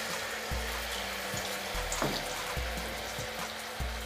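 Wheat-flour malpua batter deep-frying in hot oil: a steady bubbling sizzle. Background music with a low, pulsing bass runs underneath.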